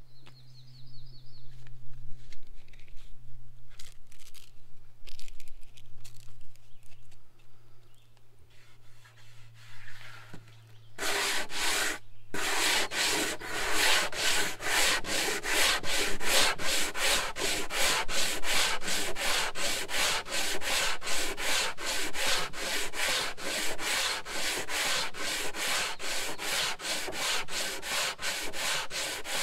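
Hand sanding block rubbing over a pine board panel in quick, rhythmic back-and-forth strokes, starting about a third of the way in after a few faint taps.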